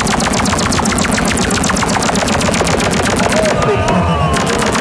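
Campfire crackling in a metal fire pit: a fast, dense, unbroken run of sharp pops and snaps from the burning logs.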